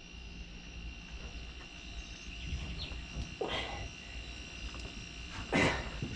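Steady high-pitched insect drone with a low hum underneath, broken by two short rustling swishes, about three and a half seconds in and again near the end.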